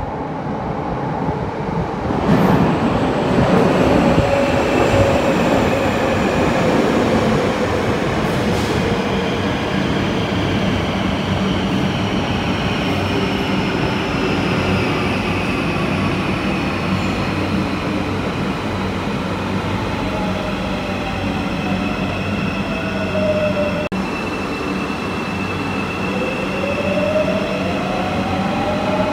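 Marmaray electric commuter train in an underground station, with loud rumbling of wheels on rail as it comes in. Its motors whine, falling in pitch as it slows. Near the end a rising whine marks a train pulling away.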